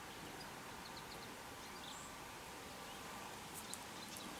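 Quiet outdoor ambience: a steady faint background hiss and hum with a few faint, short, high bird chirps, and one brief click or rustle about three and a half seconds in.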